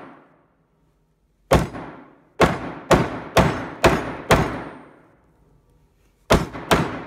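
A hammer smashing an old Samsung phone whose back is off and battery exposed: six hard blows in quick succession, each ringing briefly, then a pause and two more blows near the end.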